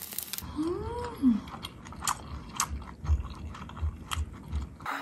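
Oil sizzling under dumplings frying in a pan, cut off less than half a second in. It is followed by a run of scattered mechanical clicks and ticks with a few low thumps, and a quick up-and-down sliding tone about a second in.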